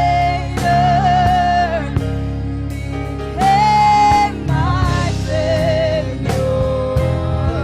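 Gospel music: a slow melody of long held, slightly wavering notes over a heavy bass and a regular drum beat.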